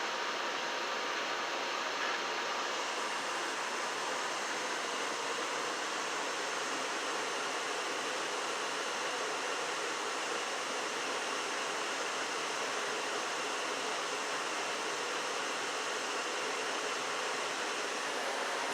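Janitrol furnace running with a steady rushing noise of air and burner, with a higher hiss filling in about three seconds in.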